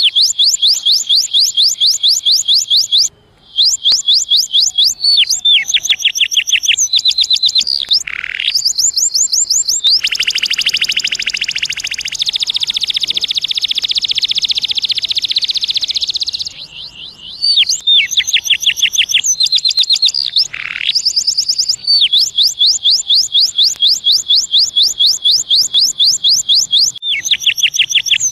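Domestic canary singing: a long song of rapid trills, each a quick run of repeated high notes, switching from one trill type to the next. A lower, rolling stretch comes in the middle, with brief pauses about three seconds in and again near seventeen seconds.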